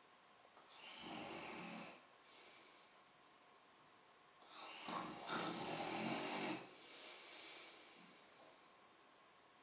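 A person snoring in sleep: two long, rasping snores about four seconds apart, the second the louder, each followed by a shorter, fainter breath out.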